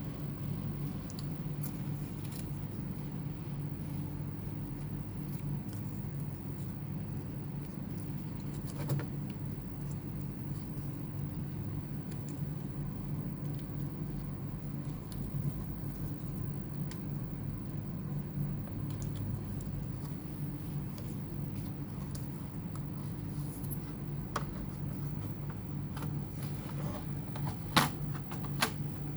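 Scattered small clicks and taps from a laptop being handled, over a steady low hum, with a few sharper clicks near the end.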